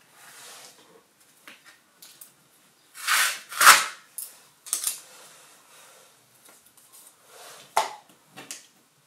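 Ghost tape being peeled off a sheet of paper, with two loud tearing sounds about three seconds in and a few shorter crackles and taps as the tape and paper are handled and pressed on.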